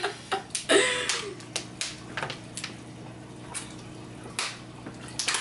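Thin plastic water bottles crackling and clicking irregularly as two people drink from them, with a short vocal sound just under a second in.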